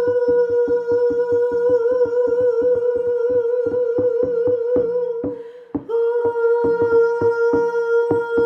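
Shamanic drum beaten at a fast, steady pulse of about four to five strokes a second, under a high sustained vocal hum held on one pitch with a slight waver. The hum breaks off briefly for a breath about five seconds in, then resumes on the same note.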